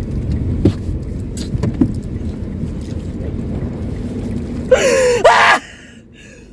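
Steady low rumble of a car heard from inside the cabin, with a few light clicks. About five seconds in comes a loud, short vocal outburst, a cry with sliding pitch, after which the rumble drops away.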